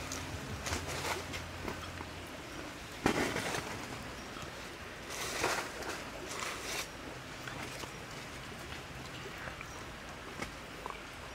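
Hands handling a whole roast chicken on a wooden spit over campfire embers: scattered rustles and light knocks, with one sharp knock about three seconds in and a longer scraping rustle around the middle. A faint low hum comes and goes underneath.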